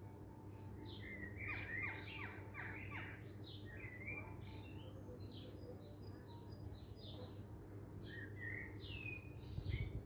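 Small songbirds chirping and calling: many short high chirps, with a quick run of falling notes a second or two in, over a steady low background rumble. A low bump sounds near the end.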